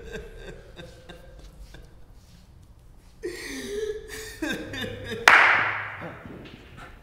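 Two short vocal sounds without words, then a sudden loud crash-like hit about five seconds in that fades away over about a second.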